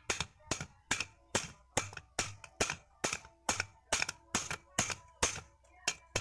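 A hammer rapping repeatedly on the steel yoke of a Colt's propeller shaft, about two to three blows a second, each with a short metallic ring. The blows are meant to drive out a universal (cross) joint that is stuck and won't come free.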